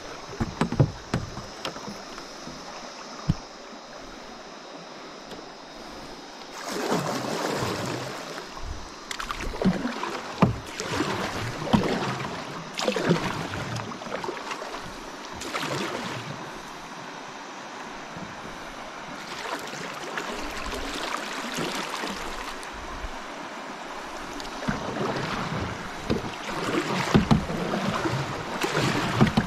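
Canoe paddle strokes splashing in the river every second or two, over a steady hiss of moving water. Near the end, the water noise grows louder and busier as the canoe runs into a shallow riffle.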